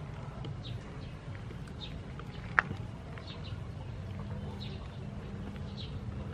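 Small birds chirping in short calls now and then over a low steady background, with one sharp click about two and a half seconds in.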